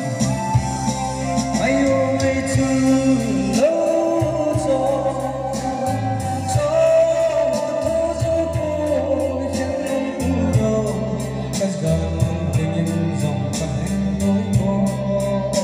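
A man singing into a handheld microphone over amplified backing music with a bass line and a steady beat.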